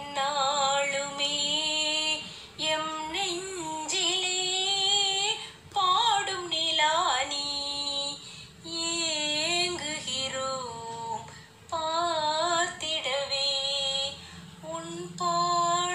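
A woman singing a Tamil song solo, her voice wavering with vibrato, in phrases of about three seconds with short breaks for breath between them.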